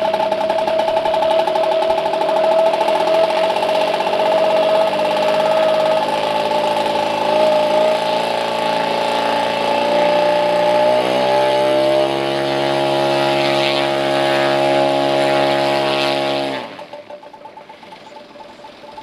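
Engine of a large-scale RC Pitts Special biplane model running steadily at idle on the ground. It settles slightly lower about eleven seconds in, then stops abruptly near the end.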